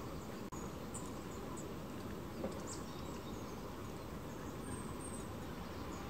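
Faint, thin, high chips and short calls of small songbirds, scattered irregularly, one slightly falling near the end, over a steady background hiss and rumble.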